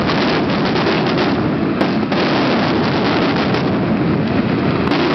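Fireworks display going off in a dense, continuous barrage of bangs and crackles, heard from a boat on the water.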